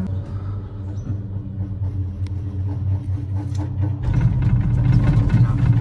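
Cable car gondola running on its haul rope, a steady low rumble inside the cabin. About four seconds in it turns louder, a rattling rumble as the gondola passes over a support tower's rollers.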